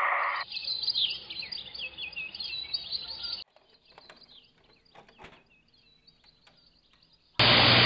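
Birds chirping for about three seconds, then a few soft clicks as a VHS tape is pushed into a TV/VCR combo. Near the end, a sudden loud burst of television static hiss cuts in.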